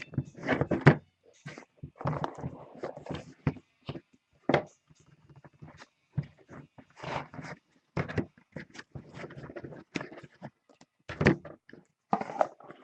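Trading cards and packs being handled close to the microphone: irregular knocks, taps and short sliding scrapes.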